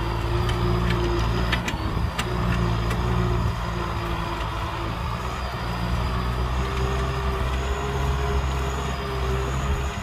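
Kubota M6040 tractor's four-cylinder diesel engine running steadily under load as it pulls a plow through the soil, with a few sharp clicks about two seconds in.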